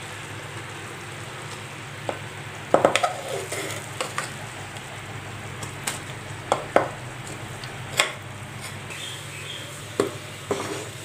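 Jaggery syrup bubbling in a nonstick pan, with scattered sharp knocks and scrapes as cooked green gram is tipped in from a bowl and stirred with a spatula.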